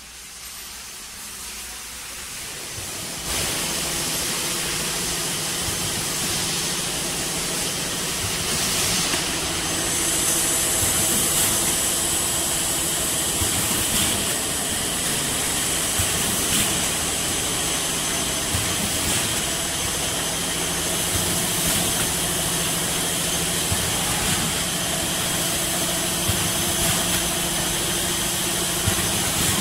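Packing machinery in a factory workshop running steadily: a continuous mechanical hum and hiss with a few steady tones. It swells up over the first three seconds, and a few light clicks sound here and there.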